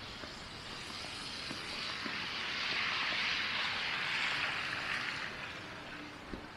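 A vehicle passing by on the street: a tyre hiss that swells over about two seconds, peaks, and fades away.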